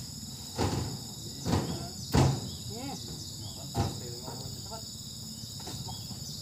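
Oil palm fruit bunches landing in a wooden truck bed with dull thuds, four times in the first four seconds, the third the loudest. Insects drone steadily throughout.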